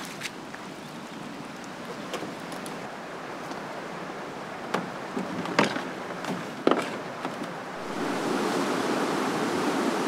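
Steady rush of flowing river water, with a few sharp knocks in the middle from gear being handled at a canoe. About eight seconds in, the rush gets louder: small rapids pouring over a fallen log.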